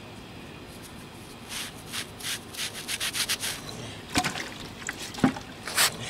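Damp sponge scrubbing over a freshly caulked crack in a concrete driveway, smoothing the caulk. There is a quick run of short rubbing strokes, about five a second, from about a second and a half in, then a few sharper knocks near the end.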